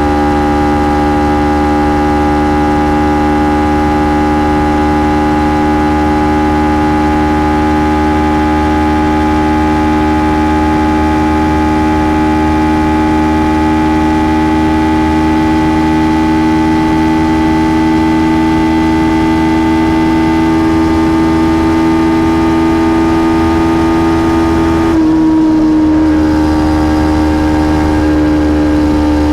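Kawasaki Ninja 300's parallel-twin engine running on its stock exhaust under steady throttle, its pitch creeping slowly up as the bike gathers speed. About 25 seconds in, the note briefly breaks and dips, then carries on a little lower.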